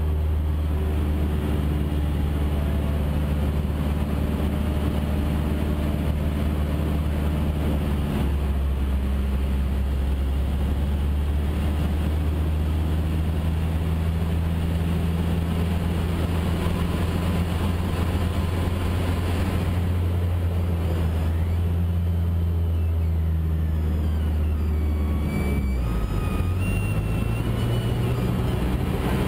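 Cessna A152 Aerobat's four-cylinder Lycoming O-235 engine and propeller heard from inside the cabin in flight, a loud steady drone. Its note shifts about eight seconds in and again near the end as power is changed during aerobatic manoeuvres.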